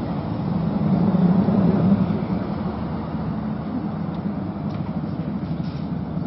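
An engine running steadily at idle, swelling slightly between one and two seconds in.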